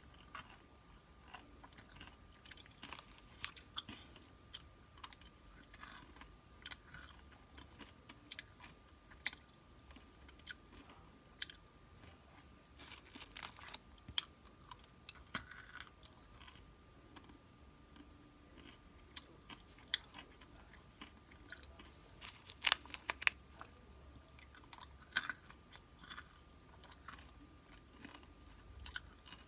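Close-miked crunching and chewing of snacks: a string of short crisp crunches, with a louder run of crunches about three-quarters of the way through.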